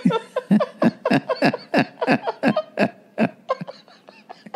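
A person laughing hard in a long run of short "ha" bursts, each falling in pitch, about three a second, growing fainter over the last second.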